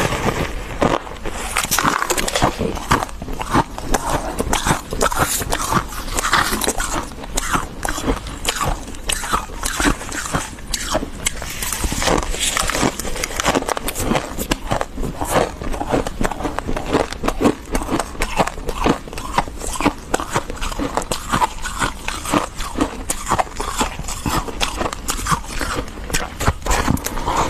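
Thick, fluffy freezer frost crunching in a dense, irregular run of crisp crunches, as it is scraped and bitten into.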